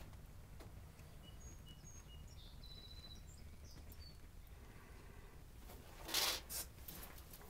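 Faint outdoor background with a few short, high bird chirps in the first half. About six seconds in comes a brief, louder rustling burst.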